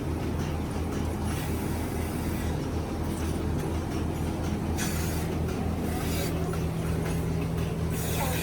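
Milking machine running with a steady low mechanical hum. Brief hisses of air come about a second in, around five seconds in and near the end.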